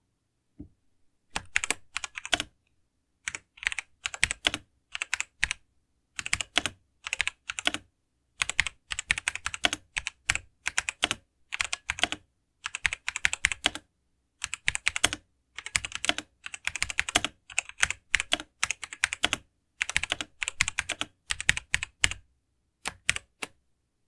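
Typing on a Razer BlackWidow mechanical gaming keyboard: quick runs of sharp key clicks in uneven bursts with short pauses between them, starting about a second in.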